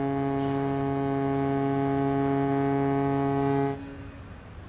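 A ship's horn sounding one long, steady blast on a single note that cuts off sharply nearly four seconds in.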